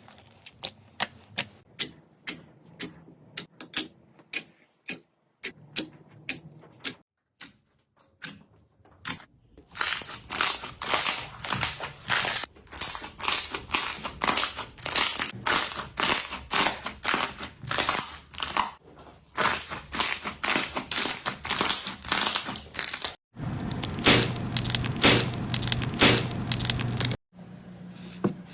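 Slime being squeezed, poked and stretched in several short clips in a row: quick sticky clicks and crackles, sparse at first and then dense, with a few louder pops near the end.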